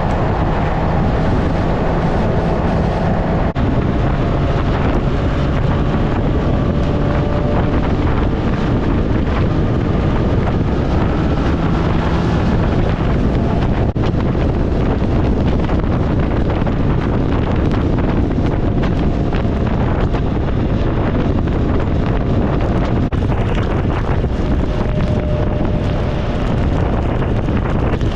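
Sport bike riding at speed, with wind rushing over the camera microphone and a faint steady engine note beneath it.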